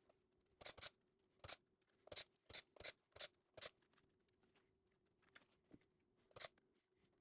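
Faint, quick clicks and taps, about ten in a burst over the first few seconds and one more near the end, over a faint steady hum.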